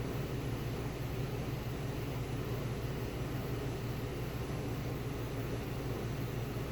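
Steady low background hum with an even hiss over it, like a fan or air conditioner running.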